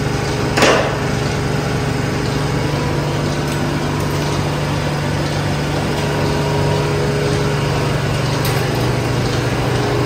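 Milking parlour machinery running with a steady, even hum, and a single sharp knock about half a second in.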